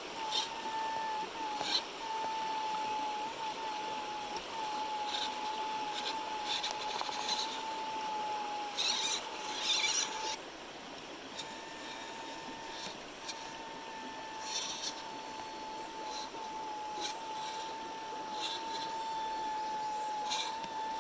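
Small RC crawler's brushed 130 electric motor and drivetrain whining at a nearly constant pitch, cutting out briefly now and then, with scattered clicks and crunches as it drives.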